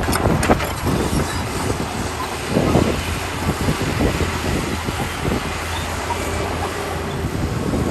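Crawler bulldozer at work: its diesel engine running steadily under a noisy grinding clatter, with irregular clanks, a few near the start and a louder burst about three seconds in.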